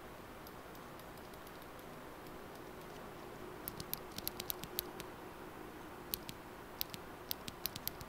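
Loose blue clicky mechanical keyboard switch clicked by hand: faint, sharp clicks in two short runs, about a dozen in all, starting a little before halfway through.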